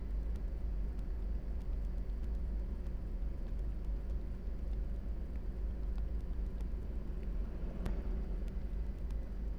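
A steady low rumble with an even hiss over it, and faint ticks, the clearest about eight seconds in.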